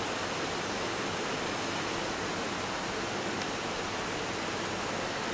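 A steady, even hiss of background noise with no distinct events in it.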